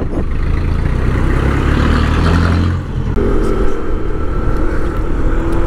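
Motor vehicle engine running with road and wind noise. About three seconds in the sound briefly drops, then a steady whine joins the engine.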